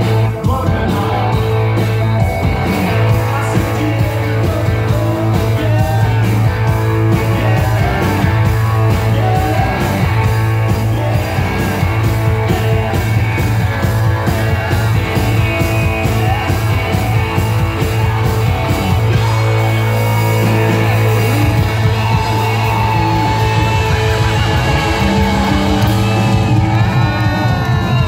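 Live rock band playing: a male singer over a Telecaster-style electric guitar and drums, with a steady beat and strong low bass notes.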